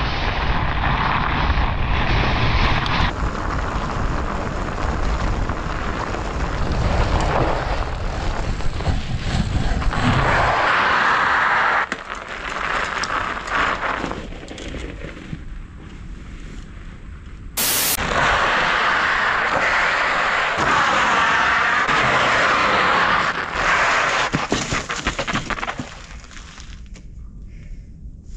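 Wind buffeting an action camera's microphone while a fat bike rides over snow and ice, with the tyres hissing on the ice. The sound comes in several stretches that start and stop abruptly.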